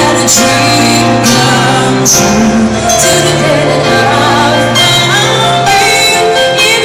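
Live band playing: a woman singing a melody into a microphone, with acoustic guitar and sustained low accompaniment.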